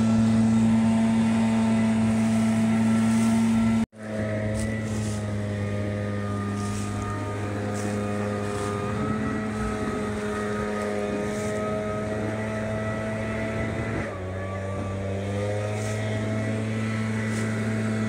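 Gas leaf blower running steadily at a constant high engine speed, blowing leaves out from under the sawmill. The sound cuts out sharply for an instant about four seconds in, then the same steady engine drone carries on, slightly quieter.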